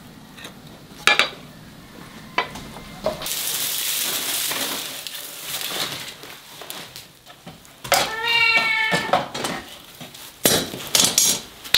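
A few clinks of a bowl and wok on a wooden chopping block, then a long rustle of dry straw being gathered up as kindling, and a cat meowing once near the end.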